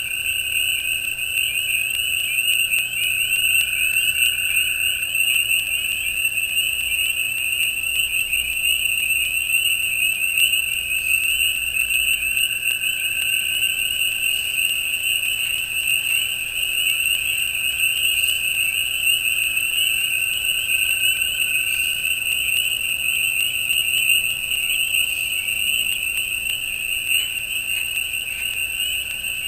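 Dense, unbroken chorus of spring peepers and other frogs, a steady wall of high peeping, with crickets trilling in thin steady high tones above it.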